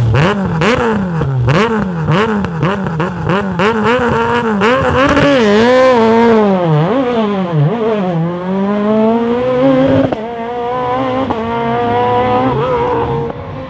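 Rally car engine revving hard, its pitch swinging up and down quickly with gear changes and lifts, with a rapid run of sharp cracks over the first six seconds or so. A long climb in revs follows; about ten seconds in the sound drops in loudness and a steadier rising engine note carries on.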